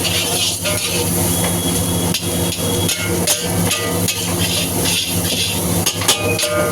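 Metal spatula repeatedly striking and scraping a wok while stir-frying chicken fried rice, with irregular clangs about two or three a second over a steady hiss.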